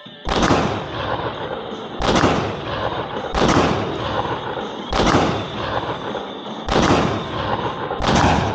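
Six gunshots from a firearm in slow, steady aimed fire, one every second and a half or so, each trailing off in a long echo.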